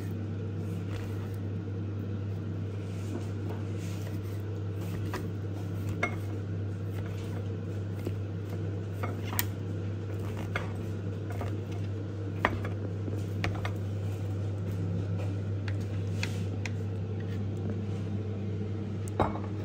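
Kitchen knife slicing and chopping brown mushrooms on a bamboo cutting board: scattered sharp knocks of the blade hitting the board, irregular and a few seconds apart, over a steady low hum.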